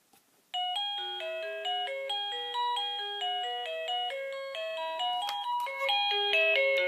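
1byone wireless doorbell receiver playing an electronic chime melody of quick stepping notes, starting about half a second in. It is set off by the sensor of the same brand's garage alarm system: wireless interference between the two products.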